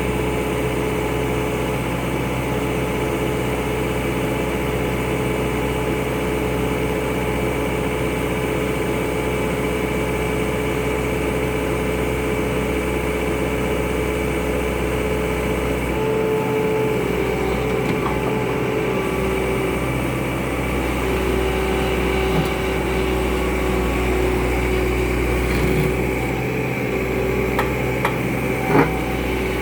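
Bobcat skid-steer loader's engine running steadily, its pitch shifting slightly about halfway through. A few sharp knocks near the end.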